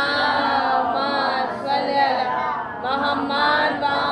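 Female chanting in a slow, drawn-out melody of long held notes. It breaks off near three seconds in, and a second phrase begins.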